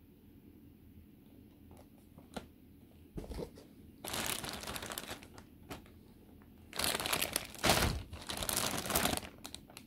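Clear plastic bags around model-kit sprues crinkling as they are handled, in bursts: a short one about three seconds in, a longer one around four to five seconds, and the loudest stretch near the end, after a few light clicks.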